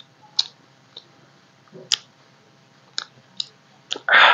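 Close-up eating sounds of hand-eating soft rice from steel plates: scattered short, sharp mouth clicks and smacks, then a louder wet squelch of a little under half a second near the end.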